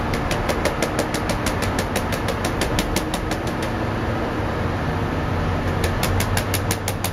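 A motor running steadily, with a rapid regular ticking of about seven ticks a second that stops about three and a half seconds in and starts again near the end.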